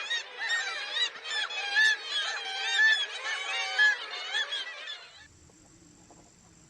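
A flock of birds calling over one another, many short overlapping calls, which cut off abruptly about five seconds in, leaving a faint low hum.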